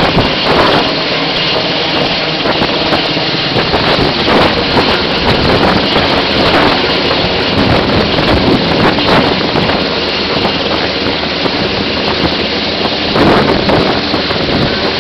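Helicopter hovering directly overhead, heard from the hoist seat beneath it: loud, steady rotor and engine noise with the rotor downwash buffeting the microphone in irregular gusts.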